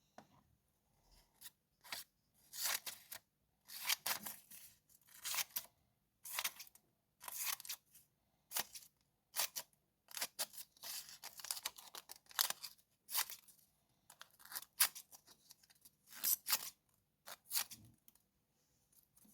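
Freshly sharpened garden shears snipping, cut after cut in an irregular run of short strokes with brief gaps between them.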